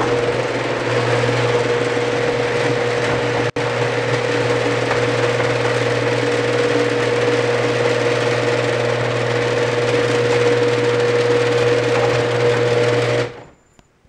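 Genie GX9000 screw-drive garage door opener running to raise a sectional garage door: a steady, very noisy motor hum and whine that cuts off about a second before the end as the door reaches the open position.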